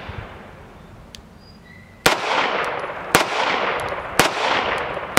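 Grand Power X-Calibur pistol fired in slow, paced shots, the first from double action after the hammer is dropped. Three sharp shots about a second apart start about two seconds in, and a fourth comes at the very end, each trailing off in a long fading echo.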